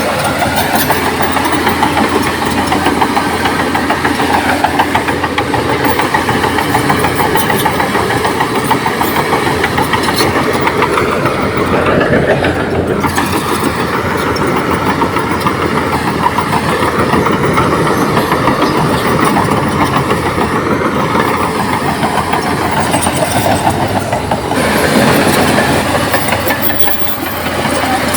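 Komatsu D58P crawler bulldozer's diesel engine running steadily under work, with the clatter of its steel tracks. The engine note shifts about halfway through and again near the end.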